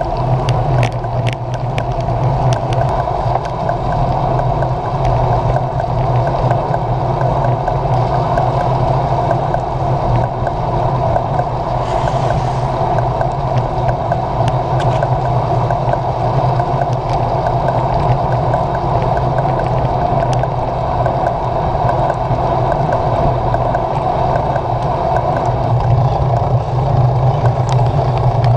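Steady wind and road rumble picked up by a camera mounted on a road bike's handlebars while riding on a wet road, with scattered clicks from bumps.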